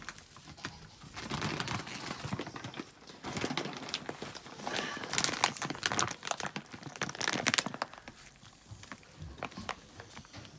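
Kangal puppies eating their first solid food and scrambling over one another in straw: a busy, irregular mix of smacking, chewing and crackling rustles, thinning out over the last couple of seconds.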